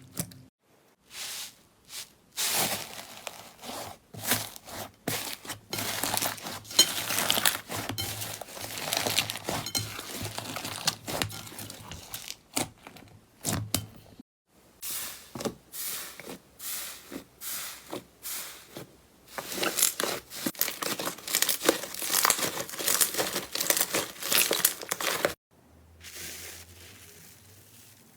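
Slime being squeezed and stretched by hand, making dense crackling and crinkling sounds. The sound stops abruptly twice, about halfway through and near the end, as the clips change.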